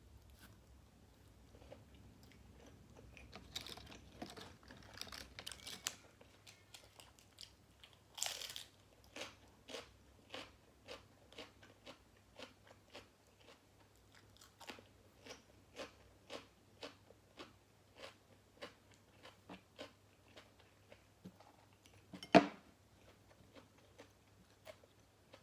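Close-miked eating of grilled pork balls with crunchy fresh vegetables: a few crunchy bites, then steady chewing at about two chews a second. A single sharp click about three seconds before the end is the loudest sound.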